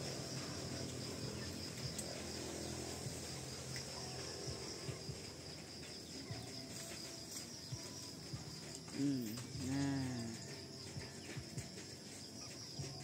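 Insects trilling steadily in a high, evenly pulsing chorus. About nine and ten seconds in, two short calls rise and fall in pitch above it.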